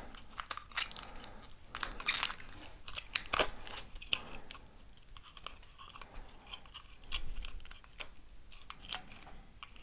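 Thin protective plastic film being picked at and peeled off a small plastic clock pendulum piece: irregular crinkling and small clicks, busiest in the first few seconds and sparser after.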